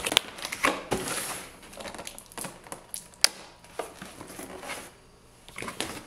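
Cardboard box being opened by hand: flaps pulled and lifted, cardboard and paper-pulp packing rustling and scraping, with scattered sharp clicks and knocks, one sharp click about three seconds in.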